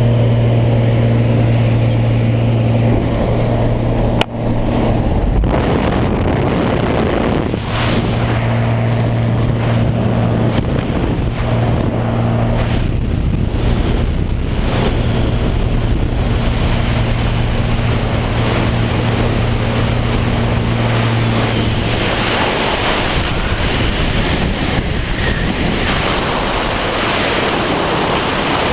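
Cessna jump plane's piston engine and propeller droning steadily with a low hum. About three quarters of the way through the drone fades and a loud rush of wind noise on the microphone takes over.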